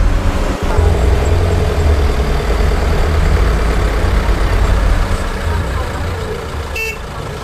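Bus engine and road noise heard from inside a small bus driving along a narrow mountain road, a steady deep rumble that eases slightly near the end.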